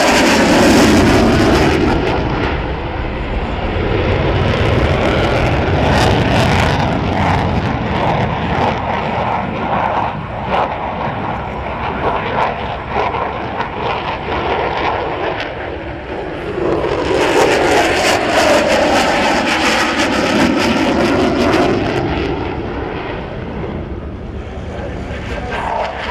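F-16 Fighting Falcon jet engine roaring loudly through a display. Its pitch sweeps and falls as the jet passes, once at the start and again about two-thirds of the way through.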